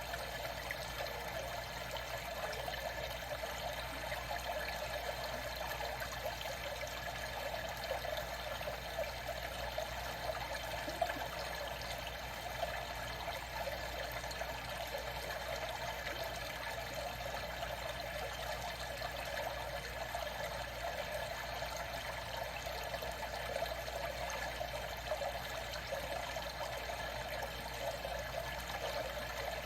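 Steady sound of moving water.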